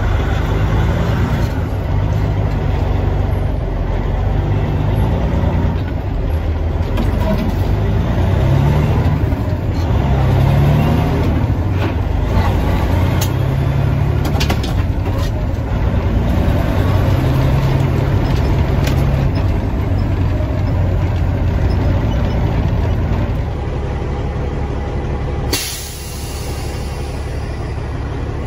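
Caterpillar C15 diesel in a Peterbilt 379 heard from inside the cab under way, its note climbing and dropping back several times as the truck is shifted through the gears. A sudden burst of air hiss from the truck's air system comes near the end.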